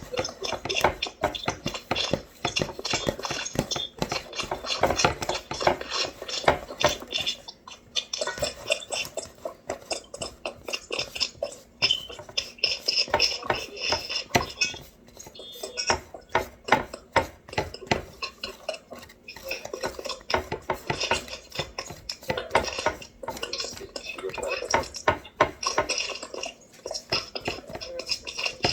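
A fork or whisk working butter into flour in a mixing bowl, rapid repeated clinks and scrapes against the bowl as the butter is mashed into pea-size crumbs for biscuit dough.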